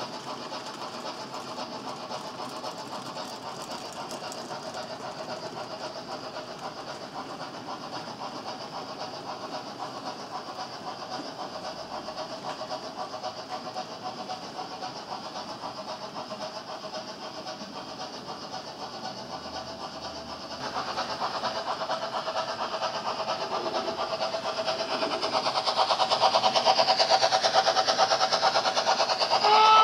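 HO-scale model train of tank wagons rolling along the track: a steady clatter of small metal wheels over the rails. It gets louder about two-thirds of the way through and louder again near the end, as a model BR 50 steam locomotive comes by.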